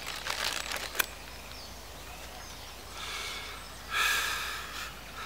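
A plastic popcorn bag crinkling as a hand rummages in it, with a sharp click about a second in, and a louder rustle of the bag about four seconds in.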